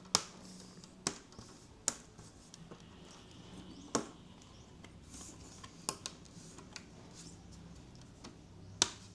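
Plastic clips of a laptop's front screen bezel snapping into place, a series of sharp clicks at uneven intervals.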